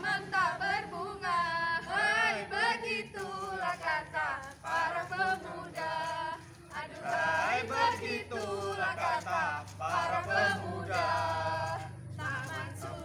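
A small mixed group of scouts singing a yel-yel, a group cheer-song, together in unison in short phrases.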